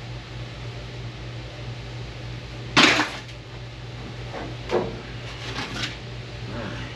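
Rusted sheet-metal body panel being pulled loose and handled: one loud clatter about three seconds in, then a few lighter knocks and rattles, over a steady low hum.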